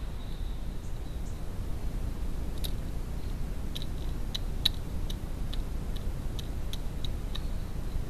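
Wood pigeon pecking seed from a feeder dish: a run of sharp clicks, about two a second, starting a few seconds in, over steady low background noise.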